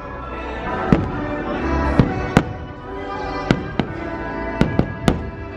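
Fireworks going off in about eight sharp bangs, some in quick pairs, over the show's music.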